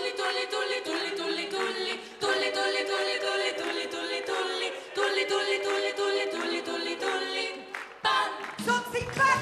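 A group of five women singing a cappella in close harmony, held chords in phrases of a few seconds each. Near the end, instrumental music with a bass line comes in under the voices.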